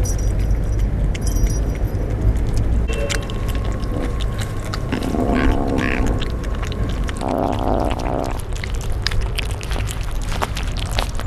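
Kittens eating wet cat food from a plastic tray, giving many small clicking chewing and lapping sounds, over a steady low rumble. A small bell on a spring cat toy jingles faintly near the start.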